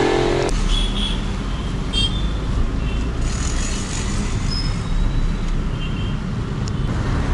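Steady low road rumble heard from inside a moving car, with a few faint short high chirps. In the first half second a labouring auto-rickshaw engine alongside is heard as a steady hum, which drops away abruptly.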